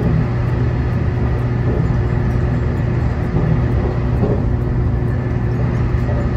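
Cabin noise inside a JR Kyushu 813 series electric train running along the line: a steady rumble with a constant low hum and a faint high whine.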